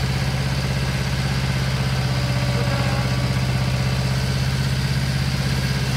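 Miniature railway diesel locomotive's engine running with a steady low throb as the train moves off slowly.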